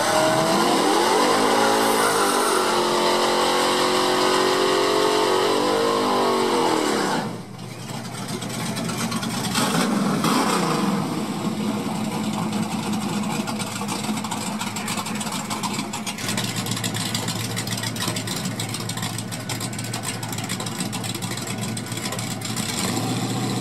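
Drag-race engine revved at the starting line, its pitch rising and then held high and wavering for several seconds before it cuts off abruptly about seven seconds in. Rougher engine and track noise follow, settling into a steady lower engine note near idle.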